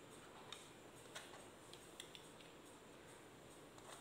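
Near silence with a few faint, light clicks of the subtraction strip board's strips being picked up and put back.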